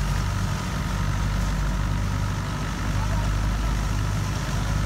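640 tractor's diesel engine running steadily, driving a thresher as harvested chickpea plants are fed in.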